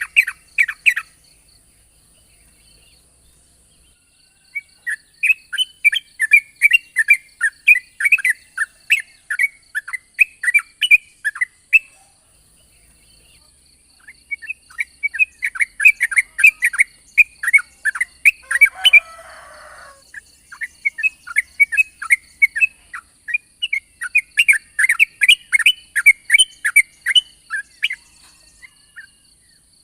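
Yellow-vented bulbul (trucukan) singing in three long runs of quick, bubbly notes, each lasting several seconds, with short pauses between runs.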